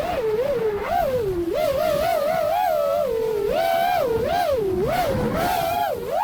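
FPV quadcopter's brushless motors whining in flight, the pitch constantly rising and falling as the throttle is worked.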